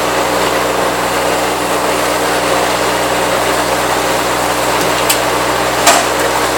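Engine of heavy equipment running steadily. Two short sharp knocks come near the end, the second louder.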